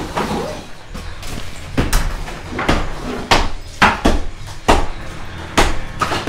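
Wall demolition: a run of sharp knocks and crashes as plaster and stone are broken off an interior wall and fall onto the rubble, starting about two seconds in and coming roughly one every half-second to second.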